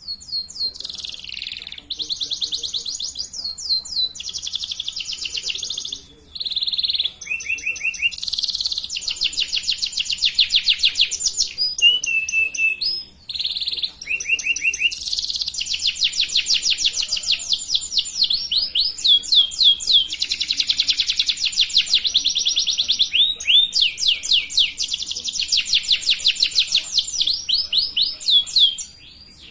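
Domestic canary singing: long runs of fast trills of repeated high notes, broken by a few short pauses.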